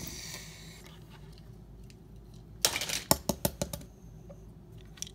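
Toy cars clattering: a quick run of about six sharp clicks and knocks a little past halfway, lasting about a second.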